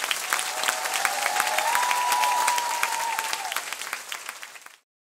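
Large concert-hall audience applauding, with one long cheer held over the clapping through the middle. The applause fades out and cuts to silence near the end.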